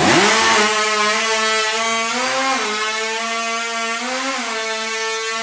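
A hot saw, a chainsaw-style saw with an oversized two-stroke engine, revs up sharply and runs flat out as it cuts through a log. The engine's pitch shifts twice as the chain loads in the wood.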